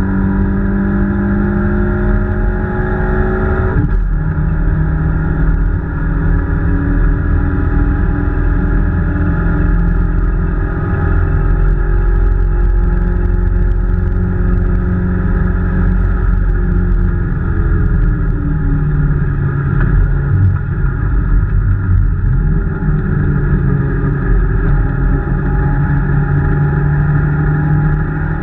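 Peugeot 205 rally car's four-cylinder engine heard from inside the cabin under hard driving. The revs climb and then drop sharply about four seconds in at a gear change. It then pulls steadily, with the pitch sagging and climbing again later on.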